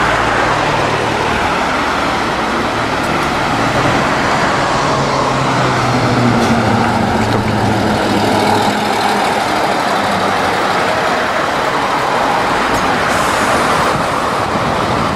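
An Isuzu K-CLM470 route bus drives past close by, its diesel engine running under load with a pitch that rises as it goes by, over the hum of road traffic.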